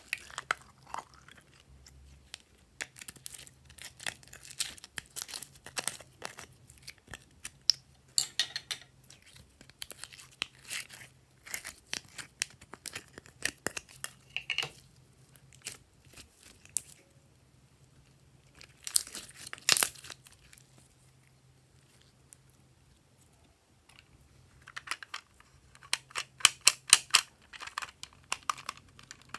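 Green glitter slime being squeezed out of a soft plastic container and handled: clusters of small sticky crackles and clicks, in several bursts with short pauses between.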